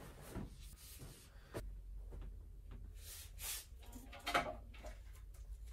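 Bedding rustling and swishing as a duvet is spread and pillows are set on a bed, a string of short soft swishes with a light click about a second and a half in and the loudest swish near the end.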